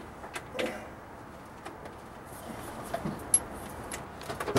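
Scattered light clicks and knocks, about half a dozen irregular taps, as tools and gear are handled under a truck.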